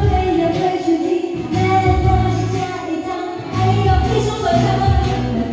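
A woman singing a slow pop ballad live into a handheld microphone over a recorded backing track with a steady bass beat, amplified through the hall's speakers.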